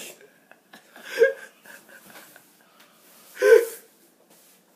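A boy lets out two short pained vocal cries, one about a second in and another after three seconds, as his mouth burns from very hot sauce.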